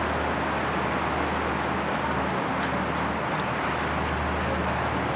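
A steady low engine hum under a constant rushing noise, with a few faint ticks.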